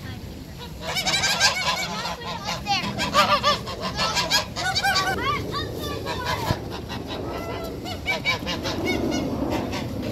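A flock of domestic geese honking, many short calls overlapping for a few seconds, then thinning to scattered honks toward the end.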